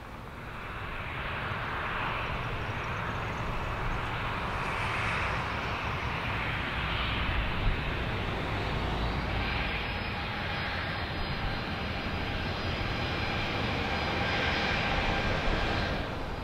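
A Boeing 757 airliner's twin jet engines at takeoff power during the takeoff roll. The roar swells in the first couple of seconds and then holds steady, with a whining engine tone joining midway and the sound loudest near the end.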